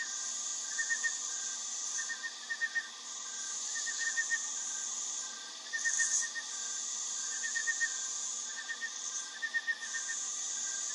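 Jungle ambience: a continuous high-pitched insect drone that cuts out briefly a few times, under a repeating short call of three or four quick notes that comes back about every second.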